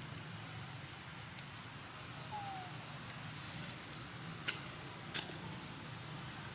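Outdoor ambience with a steady high-pitched insect drone and a low hum, broken by about six sharp clicks, the loudest about four and a half and five seconds in, and one short falling chirp a little past two seconds.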